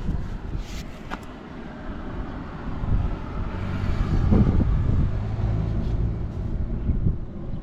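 Yamaha Breeze 125 ATV's four-stroke single-cylinder engine running. It gets louder about three seconds in and holds a steady note for a few seconds, with no abnormal noise.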